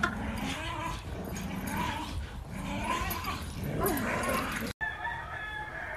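Dogs play-fighting and tugging a toy, giving short yips, barks and whimpers over a scuffling background. The sound breaks off abruptly about five seconds in.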